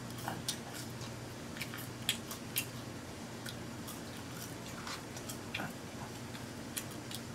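Close-miked chewing of french fries: soft mouth clicks and crunches scattered every half second or so, over a faint steady low hum.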